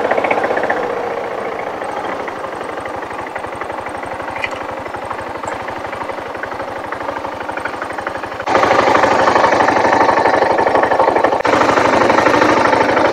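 BMW G650 GS single-cylinder motorcycle engine running, a rapid even pulsing of its firing strokes, getting louder about eight and a half seconds in.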